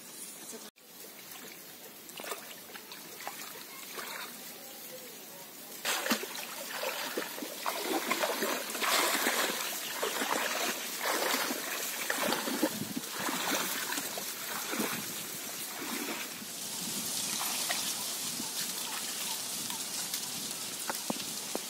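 Water splashing and sloshing as a person wades through a shallow flooded field, quiet for the first several seconds, then irregular splashes from about six seconds in, easing into a steadier hiss near the end.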